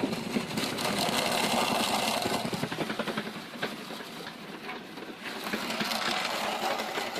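Homebuilt foundry sand muller running, its Maytag washing machine motor and wooden lantern-gear reduction turning a concrete-weighted roller and plows through green sand, giving a steady, rapid mechanical clatter. It eases slightly a little past the middle and then picks up again.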